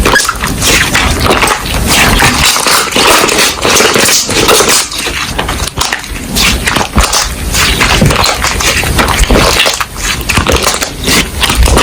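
Slime being squished and pressed by hand: a dense, continuous run of wet crackles and clicks.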